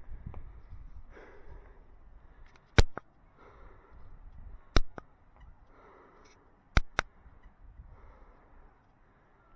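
Walking footsteps on a path, soft scuffs about every second. A few sharp clicks, single or in quick pairs about two seconds apart, stand out above them.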